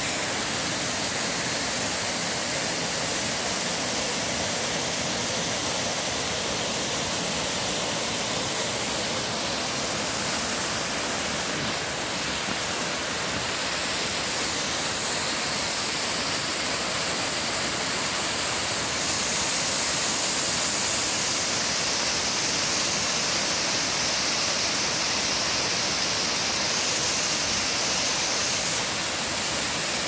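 Small mountain creek waterfall and cascade pouring over rocks: a steady rushing of water, a little louder about two-thirds of the way through.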